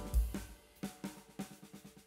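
Background music with a steady beat of short, evenly spaced hits; a deep bass note near the start fades out about half a second in.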